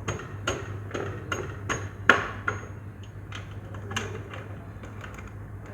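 A rapid series of sharp knocks, about two or three a second, the loudest about two seconds in, growing sparse after three seconds, over a steady low hum.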